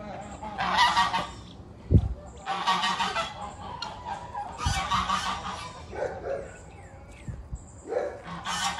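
Domestic goose honking: a series of harsh, loud honks about every two seconds, with a couple of brief low thumps in between.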